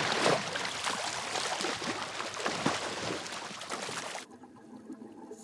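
Water splashing and churning as snorkelers swim off at the surface, cutting off abruptly about four seconds in to a much quieter, muffled sound.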